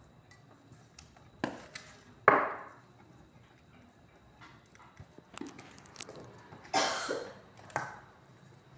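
Boiled chicken pieces being handled in a metal bowl: a few sharp knocks and clatters against the bowl, the loudest about two seconds in, and a short scrape near the end.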